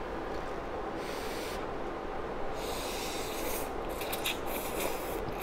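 A person slurping hot instant noodles off a plastic fork, in three airy sucking draws through the lips.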